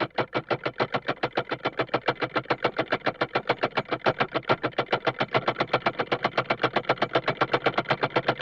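Comedy sound-effect motor: a small engine putt-putting in an even chugging rhythm of about seven beats a second.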